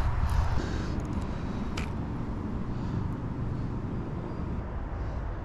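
Wind on the microphone, a steady low rumble, with one short click about two seconds in.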